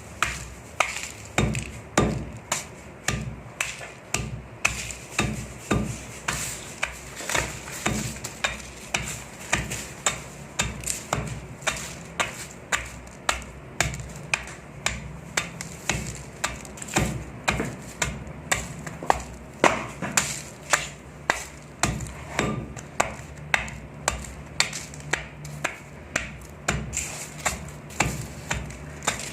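Dry, packed sand chunks crunching and crumbling, one sharp crunch after another at about two a second.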